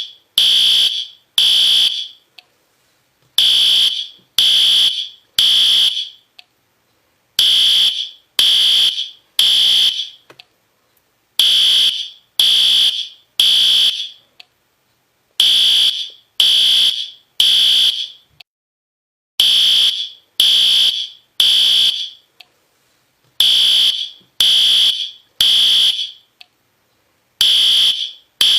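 System Sensor P2R fire alarm horn sounding in groups of three loud, high-pitched blasts with a short pause after each group, repeating about every four seconds: the temporal-3 evacuation signal.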